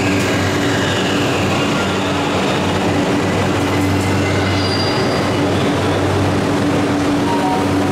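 Toei Asakusa Line 5500 series subway train moving along the platform, a steady rumble of motors and wheels on the rails with faint high-pitched tones.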